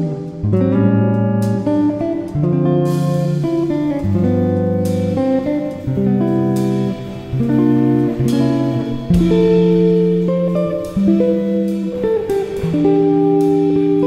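Background music: a guitar-led instrumental, plucked and strummed notes changing steadily.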